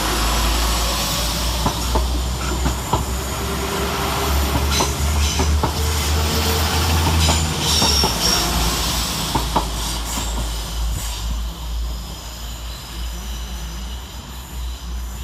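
Two coupled Class 172 Turbostar diesel multiple units pulling out, with their diesel engines running under power and the wheels clicking over rail joints. The sound fades in the last few seconds as the train draws away.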